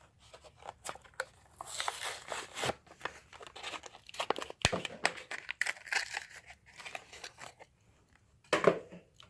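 Hot Wheels blister pack being torn open by hand: irregular crackling and tearing of the cardboard card and plastic bubble, with one sharp snap about halfway through. A brief sound of the voice near the end.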